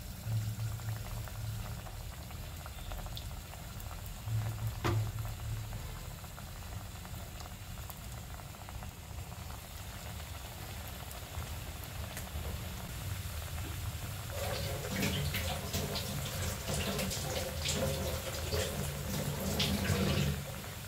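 Balls of semolina dough frying in hot oil in a kadai: a light bubbling crackle that grows much busier over the last several seconds as more balls are added. A steady low hum runs underneath.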